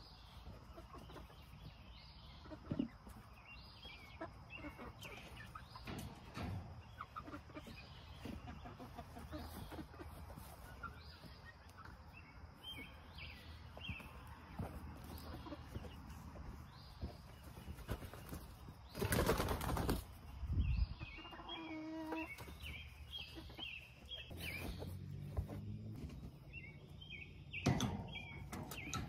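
A chicken flapping its wings in one loud burst a little past the middle, with short high bird chirps repeating every second or so and a brief pitched call soon after the flapping.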